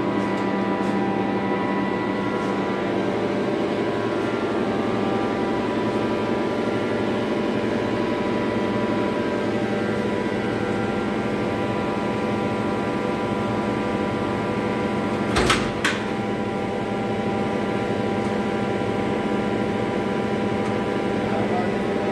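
Steady machinery hum with many even tones from the running generator plant. About two-thirds of the way in, two sharp clacks half a second apart as a switch or breaker on the switchgear panel is operated.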